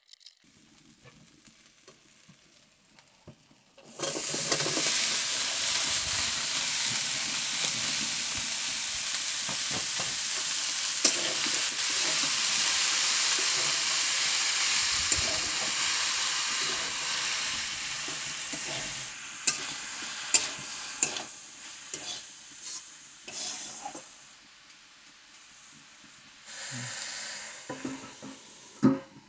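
Shredded cabbage and potato going into hot spiced oil in a steel kadhai: a loud sizzle starts suddenly about four seconds in and goes on as the vegetables are stirred with a steel spatula. The sizzle fades over the second half, with clinks and scrapes of the spatula on the pan, and near the end a steel plate is set on the pan as a lid.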